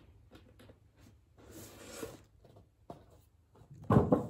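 Cardboard boxes being handled: faint rustling and scraping, then a cluster of heavy thumps about four seconds in as a box is set down.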